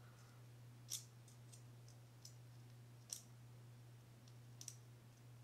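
A handful of faint, light clicks from small fishing-reel parts being handled, spaced irregularly over a low steady hum.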